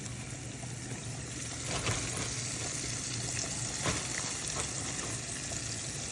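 Flour-dredged chicken livers frying in hot grease: a steady sizzle with a few louder crackles, about two and four seconds in.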